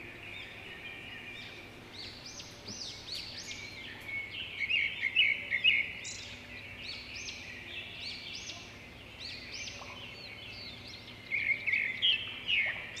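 Many small birds chirping and twittering, with busier flurries of quick chirps about four to six seconds in and again near the end.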